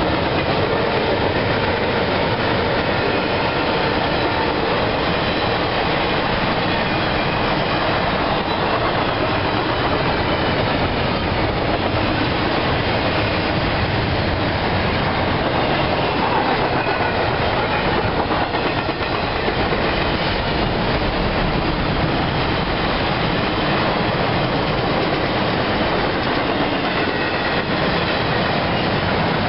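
CSX double-stack intermodal freight train rolling by: a steady rumble and clatter of steel wheels on the rails as the container cars pass.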